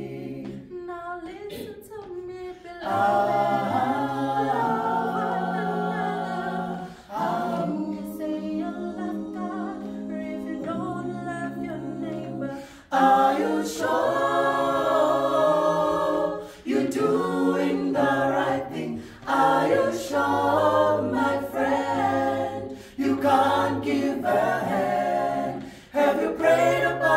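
Small mixed group of men's and women's voices singing a cappella in harmony, with a low bass part under higher parts. The singing runs in sustained phrases with short breaks between them.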